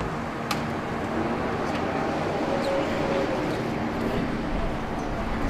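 Steady machinery noise with a low steady hum and a few faint clicks.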